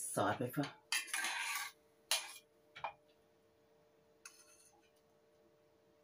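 A metal spoon clinks and scrapes against crockery and a stainless saucepan as noodles are tossed on a plate and sauce is spooned over them. A quick run of clinks and scrapes comes in the first two seconds, then single knocks and a lighter scrape about four seconds in, over a faint steady hum.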